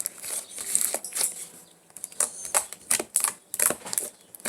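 Thick slime being squeezed and poked by hand, making a run of irregular sticky clicks.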